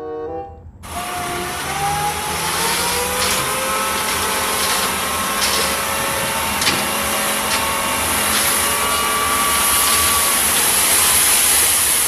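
Light diesel dump truck's engine held at high revs to drive the hydraulic hoist as the bed tips up and the sand load slides out. It starts about a second in, rises in pitch, then holds steady, with a few scattered knocks.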